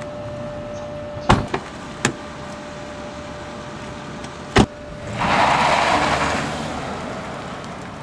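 Car doors slamming shut three times, then a sedan pulling away, its engine and tyre noise swelling about five seconds in and fading as it drives off.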